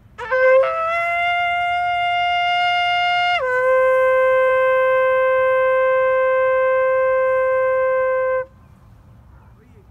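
Shofar, a ram's horn, blown in one long blast. It starts on a brief low note, jumps up to a higher note held about three seconds, then drops to a lower note held about five seconds before cutting off.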